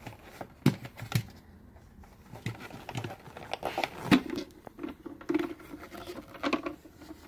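Hard plastic parts of a Shark Navigator Lift-Away vacuum cleaner being handled and taken apart: scattered clicks, knocks and light rattles.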